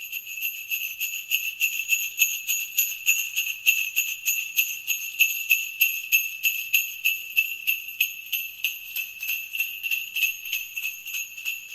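A small jingle bell shaken in a steady, rapid rhythm, about four jingles a second, with a high ringing tone.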